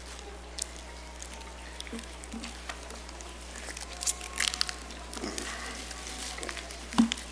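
Scattered light clicks, taps and rustling from small communion cups being handled, with a sharper knock about seven seconds in, over a low steady hum.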